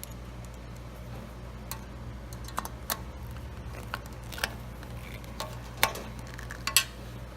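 Screwdriver and screws clicking and tapping irregularly while screws are started and driven in to fasten a mounting bracket, over a steady low hum.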